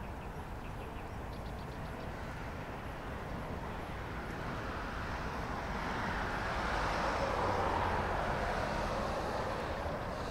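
A passing vehicle: its noise swells over several seconds to a peak about seven seconds in, then fades.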